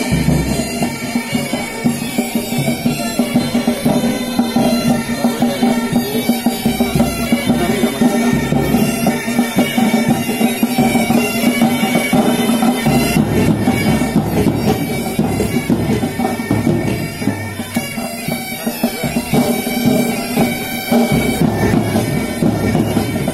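Military pipe band playing a march: bagpipes sounding a steady drone under the chanter melody, with drums beating time.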